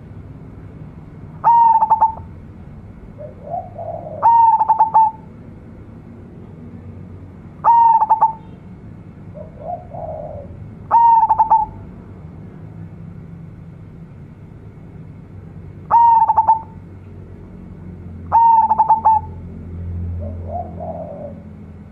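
Zebra dove (local perkutut) singing its cooing song: six phrases a few seconds apart, each a quick run of short notes ending in a held, steady note. Softer, lower cooing comes between some of the phrases.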